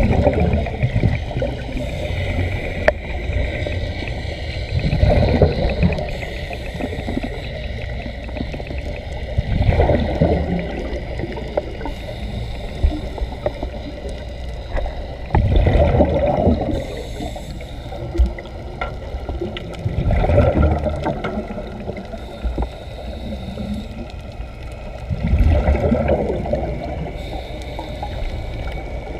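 Muffled underwater bubbling of air escaping from Sea Trek diving helmets, with a steady watery rush that swells into louder gurgling bursts about every five seconds, in time with the wearers' breathing.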